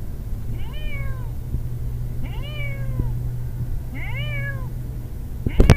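Hairless cat meowing over and over: three drawn-out meows roughly every one and a half to two seconds, each rising then falling in pitch. Near the end a sharp knock comes as a fourth meow begins.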